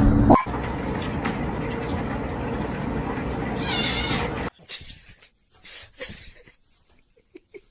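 A cat meows once, a short rising-and-falling call about four seconds in, over a steady background hiss. After that it turns much quieter, with a few faint soft taps.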